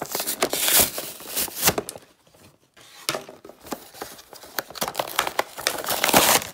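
Plastic blister packaging and paper card crinkling and rustling as an action figure's package is handled and opened, in bursts with a short pause about two seconds in.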